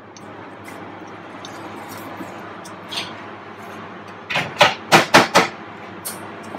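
A stainless steel milk jug and its lid knock against a steel counter: about five quick, sharp clanks within a second, after a single lighter click. A steady background hum runs underneath.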